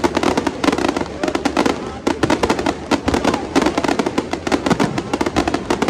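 A long string of Chinese firecrackers going off in a dense, rapid crackle of sharp bangs, starting suddenly.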